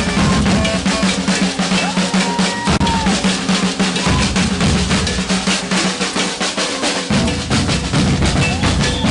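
Maracatu percussion ensemble playing a fast, dense rhythm, with deep bass drums under snare drums.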